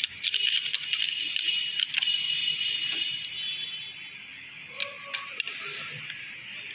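Screwdriver working a clamp screw on a shaft of the reverse-feed linkage under a Juki industrial sewing machine, snugged only lightly: a quick run of small metal clicks and scrapes through the first two seconds, then a few more clicks about five seconds in, over a steady hiss.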